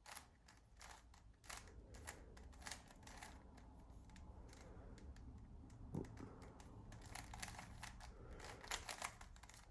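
Plastic Rubik's cube being turned by hand: a run of quick, irregular clicks as the layers snap round, bunching up near the end.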